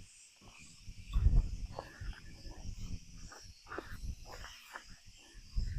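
Dry garden mulch and drip tubing rustling and crackling as they are pulled aside, with low rumbles of wind or handling on the microphone about a second in and again at the end. A faint steady insect chirring runs underneath.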